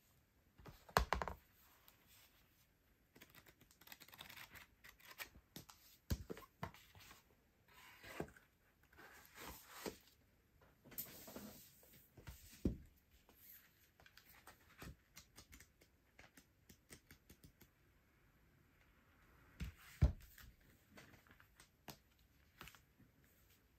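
Shrink-wrapped album books handled on a desk: cellophane wrap rustling and crinkling, with a few soft knocks as the albums are picked up and set down.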